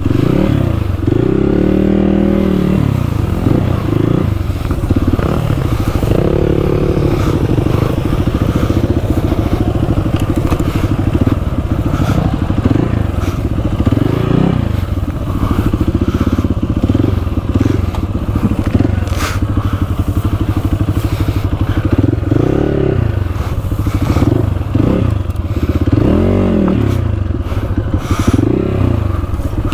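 Enduro dirt bike engine revving up and dropping back again and again as it is ridden, with scattered knocks and clatter.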